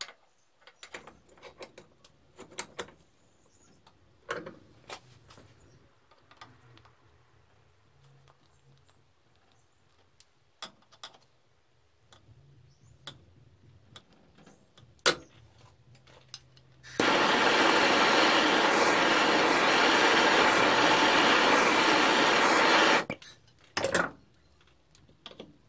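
Scattered metal clicks and taps of pliers gripping and working a small steel pin out of a vice casting. About two-thirds of the way through, a loud steady rushing noise runs for about six seconds and cuts off, followed by a few more clicks.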